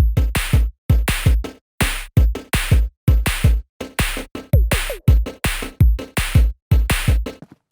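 Background music: a fast electronic drum beat, with a steady run of sharp hits over strong bass kicks. It stops shortly before the end.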